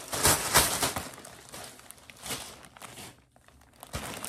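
Plastic poly mailer bag crinkling as it is handled, loudest in the first second, with softer rustles about halfway through and near the end.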